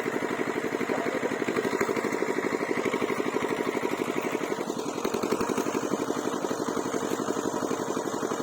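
A small engine running steadily with a fast, even chugging pulse.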